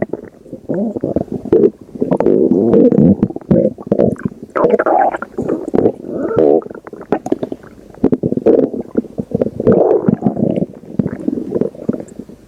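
Loud stomach growling and gurgling, coming in irregular rumbling bursts a second or two long with short lulls between them and many small wet clicks.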